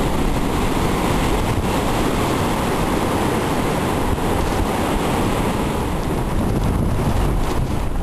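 Ocean surf breaking and washing up a sandy beach, with wind buffeting the microphone in a steady low rumble.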